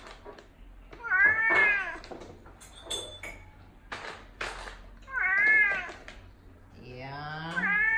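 Tonkinese cat meowing to beg for treats: three calls that rise and then fall in pitch, about a second in, about five seconds in, and a longer one starting near the end.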